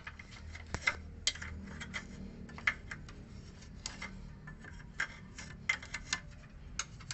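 Irregular light clicks and taps of a small tool against the car's front suspension parts as grease is worked onto the stabilizer link area, over a faint low hum.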